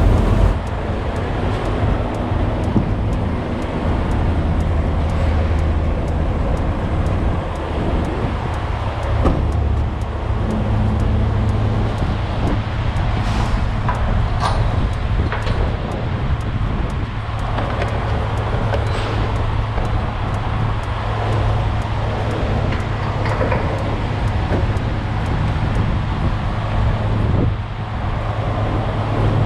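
A heavy diesel engine running steadily with a low, even hum, with a few short clicks about halfway through.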